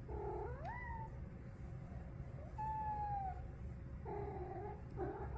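Feral street cat making a run of short meows and chirrups: one call slides up in pitch about half a second in, a longer held call falls slightly in the middle, and two short calls come near the end.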